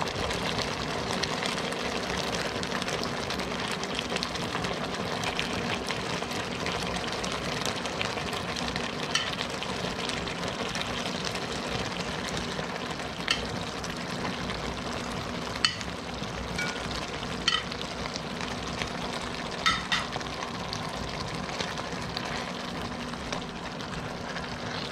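Tomato-and-vegetable sauce simmering and bubbling steadily in a pot as pieces of fried pollock are set into it with metal tongs. Several sharp clicks of the tongs against the pot come in the second half.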